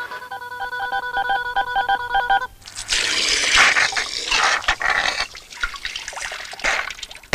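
Cartoon sound effect of a telephone line: a steady electronic tone with quick beeps, about four a second. It stops suddenly after about two and a half seconds and gives way to a loud gush of spraying water, which fades near the end.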